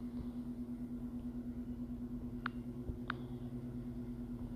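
A steady low hum with a faint, even pulse, broken by three short, light clicks: one about halfway through, another under a second later, and a third at the end. The clicks fit fingertip taps on a phone's touchscreen while paging through a Bible app.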